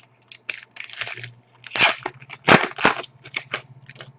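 Crinkling and crackling of a foil trading-card pack wrapper being torn open and handled: a run of short crackles, louder about two seconds in.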